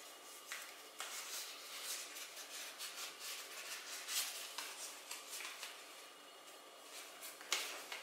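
A stiff rolled paper message being unrolled and straightened by hand: faint crinkling and rustling, a quick run of small crackles that thins out after about five seconds.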